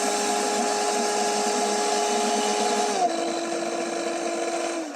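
Morgan MBL-402WG blender motor running the dry mill grinder jar at speed 2, a steady whine that steps slightly lower in pitch about three seconds in and winds down near the end.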